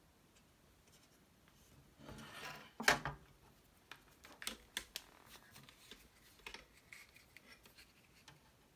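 Handling of a computer circuit board on a wooden desk: a rustle about two seconds in, then a sharp knock as the board is set down. After that come small scattered clicks and scratches as a soldering iron works on the underside of the board to fit a replacement transistor.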